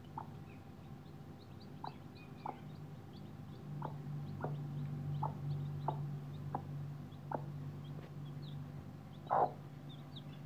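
Mother hen clucking in short, repeated clucks every half second to a second and a half, with one louder call near the end, while her newly hatched chicks peep high and thin throughout.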